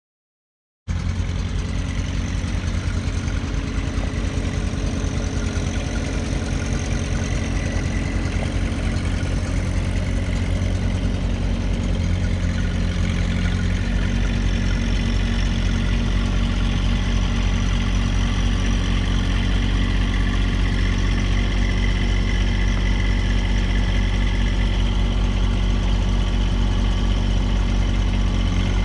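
Compact tractor's engine running steadily with a low, even rumble, starting abruptly about a second in.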